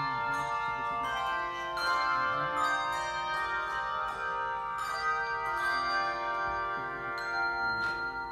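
Handbell choir ringing a piece: many bell notes sounding together and ringing on, with new notes struck about every second.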